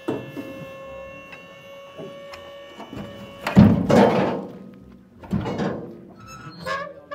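Thunks on the metal body of a livestock truck: a loud clattering knock about halfway through and a smaller one about a second and a half later, over a steady humming tone that stops just before the first knock.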